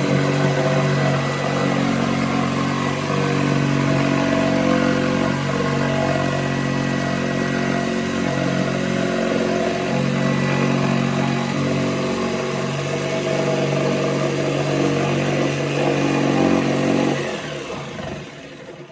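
An engine running steadily at an even pitch, fading out near the end.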